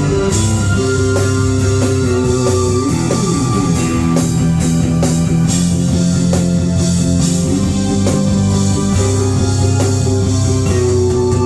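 Live band playing a groove: guitar over bass and drum kit, with sustained low notes and a sliding run about three seconds in.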